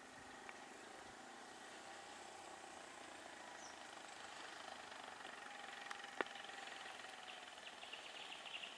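Faint motor-vehicle engine running, growing slightly louder, with a single sharp click about six seconds in and some high chirping near the end.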